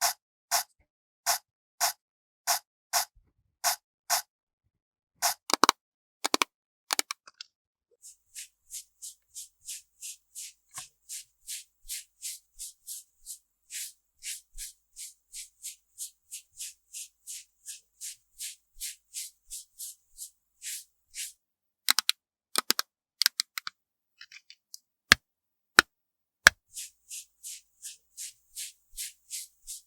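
Makeup-application sound effects: evenly spaced rubbing strokes, as of a brush or applicator worked back and forth, louder and slower at first and then faster and fainter. A few sharp clicks fall about three quarters of the way through.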